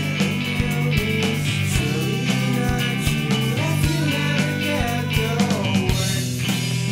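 Background rock music with electric guitar and a drum beat.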